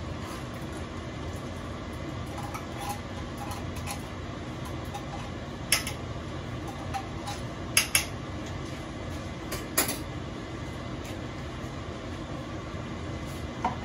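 Small metal tomato paste can knocked against a stainless steel cooking pot, a few sharp clinks about two seconds apart, the middle one a quick double, over a steady low hum.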